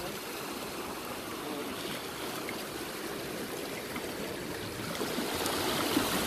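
Seawater washing and trickling over rocks at the shore, a steady rush of water that swells a little near the end.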